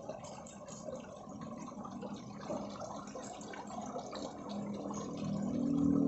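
Water splashing and trickling, with a low hum that swells about four and a half seconds in.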